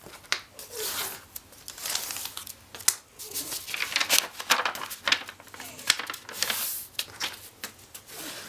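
A square sheet of origami paper being folded and creased: irregular rustling and crinkling, with short scraping strokes as the crease is flattened and pressed.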